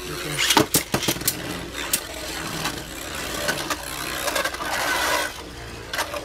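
Two plastic Beyblade Burst spinning tops, Mirage Fafnir and Rage Longinus, whirring in a plastic stadium. Sharp clacks come every second or so as the tops strike each other and the stadium wall.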